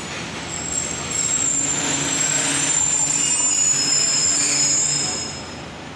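Passenger train coaches' wheels and brakes squealing with high, drawn-out whines over a low rumble as the arriving train slows to a stop. The squeal swells about a second in and fades near the end.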